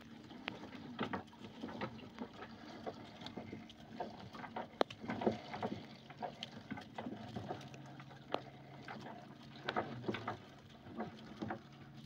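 Gill net being hauled by hand into a small fishing boat: irregular knocks and slaps as the net, its plastic floats and gilled mullet come over the side and land on deck, over a low steady hum.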